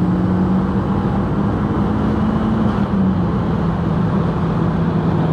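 Mk2 Golf's turbocharged 1.8-litre 20-valve four-cylinder running at a fairly steady engine speed on the road. Its note rises slightly and then eases back about three seconds in, over continuous road noise.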